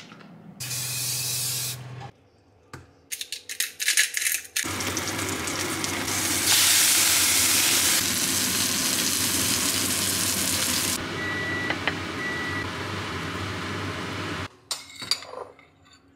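Salmon steak frying in oil in a nonstick pan, a steady sizzle that swells louder for a few seconds in the middle. A few clicks and clatter come before it, and two short high beeps sound near the end.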